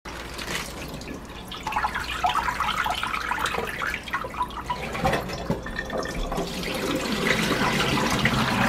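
Water splashing and sloshing as a bunch of callaloo leaves is dunked and swished in a stainless steel pot of water in a kitchen sink, washing the leaves.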